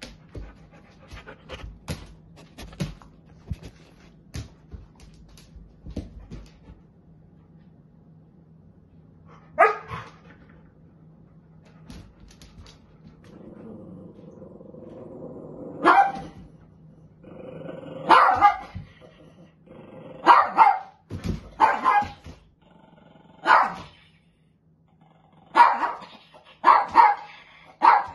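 Dogs barking at each other, with a low growl building in the middle and the barks coming every second or two, closer together near the end. Light taps and scuffles of paws on a hardwood floor come before the first bark.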